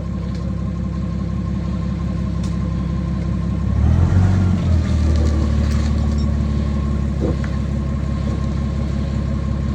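Excavator engine running steadily; about four seconds in it grows louder and heavier, as if taking load, and holds there, with a faint steady whine above it.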